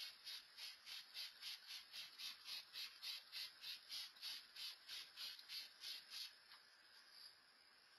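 Faint insect chirping, a steady pulse of about four to five chirps a second that stops abruptly about six seconds in, leaving a faint hiss.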